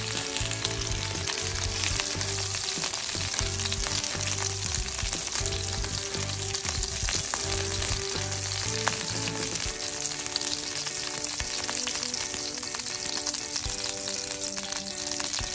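Pork-wrapped tsubomina rolls sizzling in a frying pan in fat rendered from the pork, a steady dense sizzle. Soft background music runs underneath.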